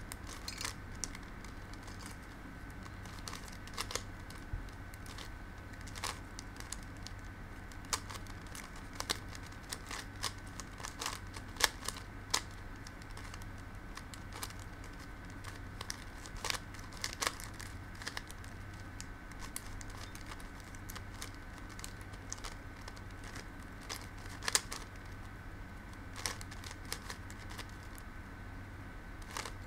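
A Shengshou kilominx twisty puzzle turned by hand: irregular clicks and clacks of its plastic faces turning, often several in quick succession, with a faint steady hum and high tone underneath.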